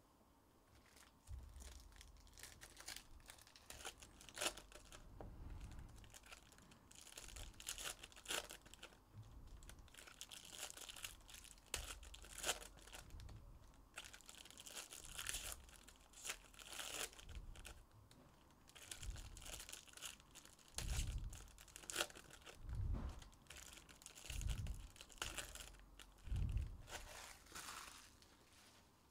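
Stacks of trading cards being handled and moved on a tabletop: steady crinkling, rustling and card clicks, with several soft thumps in the last third.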